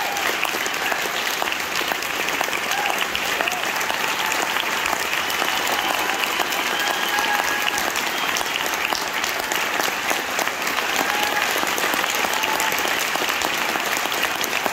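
Theatre audience and choir applauding steadily after a song, with a few voices calling out over the clapping.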